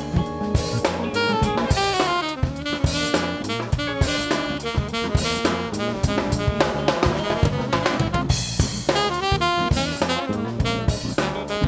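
Live funk band playing, with a busy drum-kit groove of kick, snare and rimshots carrying the rhythm, and saxophone and other pitched lines over it.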